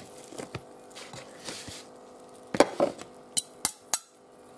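Knife and fork cutting into cooked lamb shank on a plastic chopping board. Faint scraping at first, then, about two and a half seconds in, a handful of sharp clicks and knocks of the cutlery against the board.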